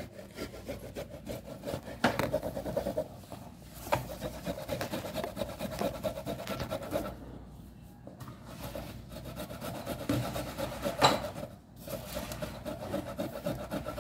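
Steady rubbing, rasping noise with a few sharp knocks; the loudest knock comes about eleven seconds in.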